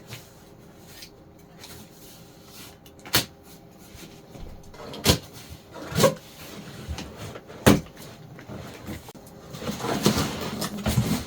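Large cardboard shipping box being opened: four sharp knocks as its flaps and contents are handled, then rustling of the packing near the end.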